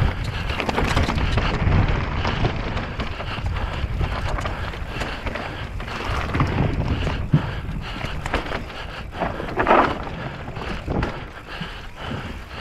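Wind rushing over the microphone while an electric mountain bike runs down a rough trail, its tyres and frame giving off a constant clatter of knocks. There is a louder rasping burst of noise about ten seconds in.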